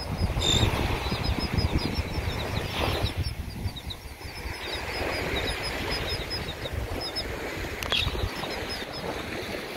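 A flock of terns calling, a long run of short high chirps with a few louder calls about half a second in and again near eight seconds in. Wind buffets the microphone, over the wash of surf.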